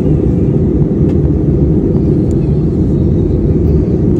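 Airliner cabin noise on the approach to landing: the steady, loud low rumble of the engines and airflow heard from inside the passenger cabin.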